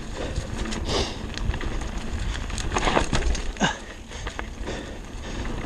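Mountain bike rolling down a leaf-covered dirt trail: tyres crunching over dry leaves and the bike rattling over bumps, with a cluster of sharper knocks about a second in and again around the third second.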